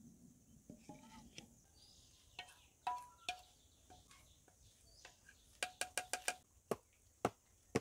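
Stainless steel bowl and steel cake tin clinking while cake batter is poured from one into the other: light metal knocks, each with a short ringing tone, including a quick run of about six taps a little past halfway.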